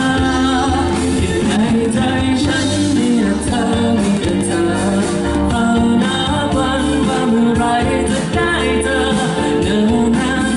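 Live pop song: a singer singing a sustained melody into a microphone over a full band accompaniment, amplified through a stage sound system.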